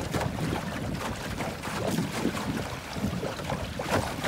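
Water rushing and slapping along the hull of a small sailing skiff under way in choppy water, with wind buffeting the microphone. There is a slightly louder splash near the end.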